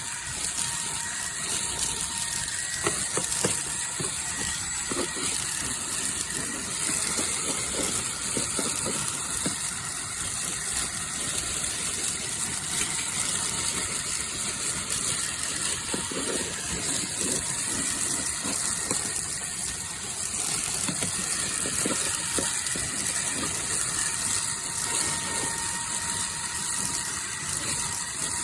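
Fanttik Fold V10 Apex cordless handheld vacuum running on its low setting: a steady whine and rush of air, with grit and dirt rattling irregularly as they are sucked up through the nozzle into the dust cup.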